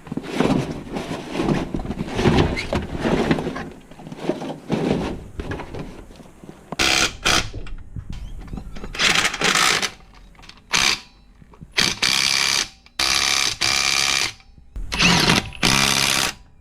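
Irregular clattering and knocking, then a series of short, loud bursts of compressed air hissing, each up to about a second and a half long.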